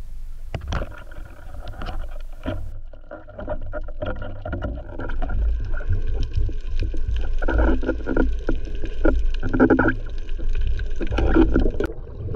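Underwater sound picked up by a spearfisher's camera: a few sharp clicks in the first couple of seconds, then moving water and a steady low rumble with faint steady tones running under it, growing louder in patches toward the end.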